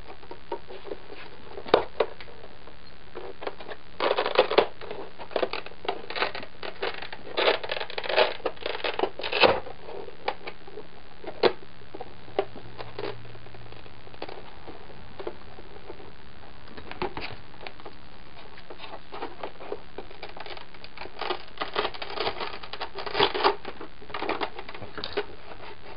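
Scattered clicks, taps and crinkling from handling a white plastic shin armor piece, pressing its hook-and-loop Velcro strips into place and closing the shin. The noises come in two busy stretches, from about four to ten seconds in and again near the end.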